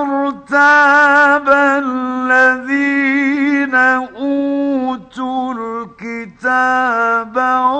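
A male Quran reciter chanting a verse, drawing the syllables out into long, ornamented, wavering melodic phrases with short pauses between them, on a 1950s recording.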